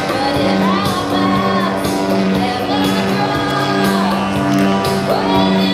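Music: a song with a singing voice over held instrumental notes.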